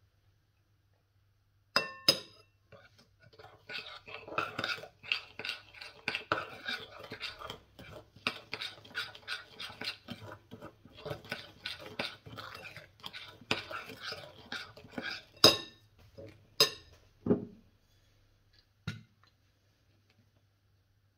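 A kitchen utensil scraping and clattering rapidly against cookware for about ten seconds, with sharp clinks before and after and a low knock near the end.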